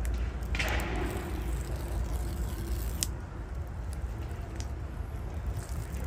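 Plastic wrap on a MacBook Pro box torn open at its pull tab: a short rasping rip about half a second in, then a sharp click about three seconds in.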